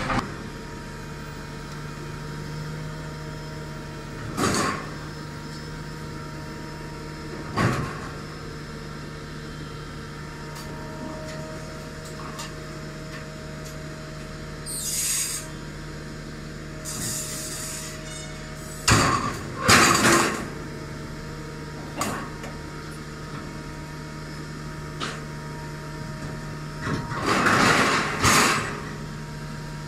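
Heavy scrap-handling machinery running steadily: an inclined hydraulic scrap shear and a material handler loading it with steel beams. Loud metal crashes and clanks come now and then as the steel is dropped in and cut, with a couple of short hisses near the middle.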